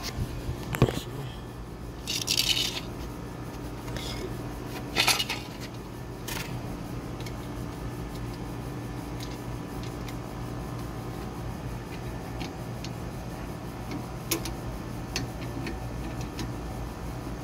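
Metal tools and hardware clinking and scraping during hands-on work under a pickup's front suspension. There is a sharp clank about a second in and a couple of louder scrapes in the first few seconds, then scattered light clicks. A steady low hum runs underneath.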